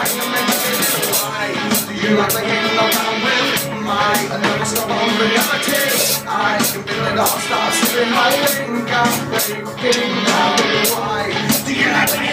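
Rock music with a drum beat played loud through a PA system, with a man singing into a handheld microphone over it.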